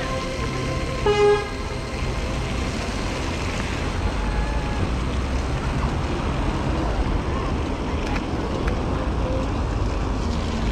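Steady city street traffic, with one short vehicle horn toot about a second in.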